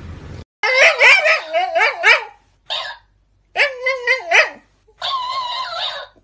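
Dog whining and yowling in four bursts of wavering pitch, the first long, the second short, the last held at a steadier pitch.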